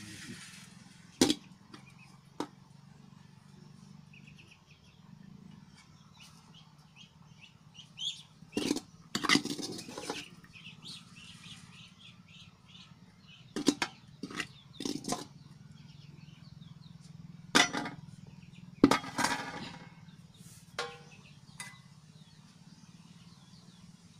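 Metal ladle knocking and scraping against a metal cooking pot and plates as cooked rice is served out, in scattered clinks, with birds chirping faintly.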